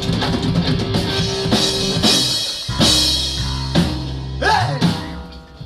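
Live punk rock band with drum kit, bass and guitars ending a song: full playing, then a few big final hits with cymbal crashes over a held bass note, fading out near the end.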